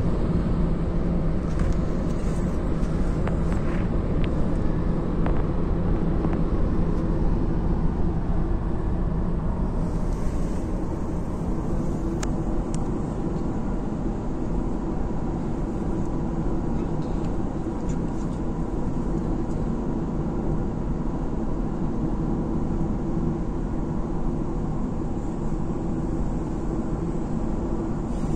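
Steady road and engine noise inside a Honda car's cabin cruising at motorway speed: tyre rumble and wind with a low engine drone, slightly louder over the first several seconds.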